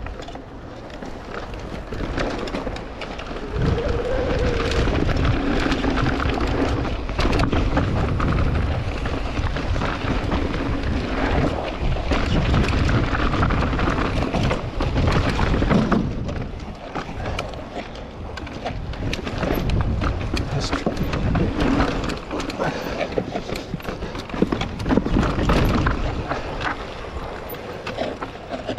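Mountain bike ride heard from a bike-mounted action camera: tyres rolling over dirt and rock with frequent knocks and rattles from the bike, under wind rushing on the microphone.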